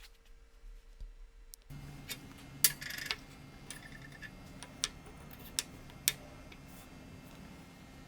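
A handful of sharp clicks and light taps, as of small tools or parts being handled on a workbench, over a low steady hum; quiet for the first second and a half.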